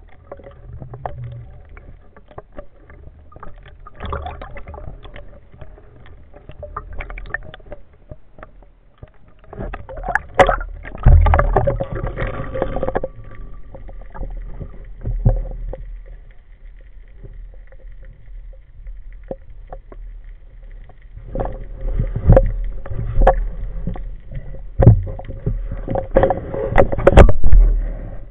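Underwater rumble and water movement at a speargun-mounted camera, with repeated knocks and clunks as the gun and its line are handled. The noise comes in two louder stretches, about ten to thirteen seconds in and again through the last seven seconds, where a speared sea bass is being handled.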